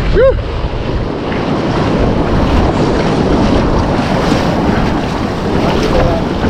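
Shallow surf washing and breaking around two people wading ashore, with strong wind buffeting the microphone. A short pitched call, like a brief shout, sounds right at the start.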